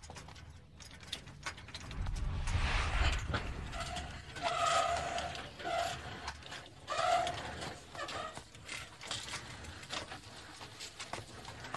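Tricycle food cart rolling along a paved road, its chain and frame giving a run of small clicks and rattles, with a heavier rumble a couple of seconds in and a few short squeaks in the middle.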